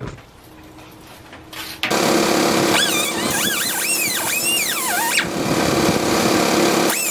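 Grinder with a cut-off wheel cutting through the aluminium armour of BX cable, starting suddenly about two seconds in: a loud, steady running noise with a high squeal that wavers up and down in pitch as the wheel bites into the metal.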